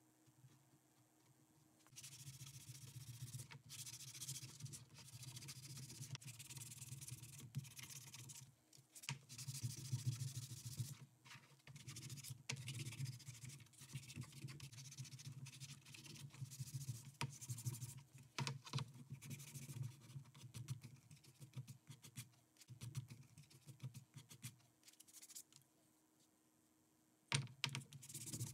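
Sandpaper scratching on wood as a small wooden puzzle piece is hand-sanded with a loose sanding disc, in back-and-forth strokes with short pauses. It starts about two seconds in and dies away near the end, followed by a single knock.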